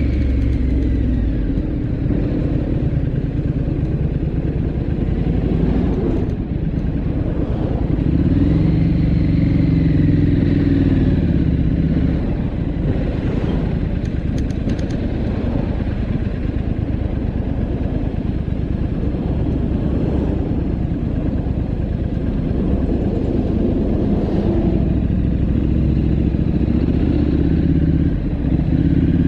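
Motorcycle engine running at road speed, heard from the rider's seat with steady wind and tyre noise. The engine pitch rises and falls a few times as the throttle changes.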